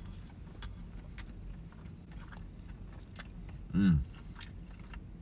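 A man chewing a big mouthful of sandwich, with faint wet smacks and clicks of the mouth over a steady low hum. About four seconds in, a loud appreciative "mm" hum that falls in pitch.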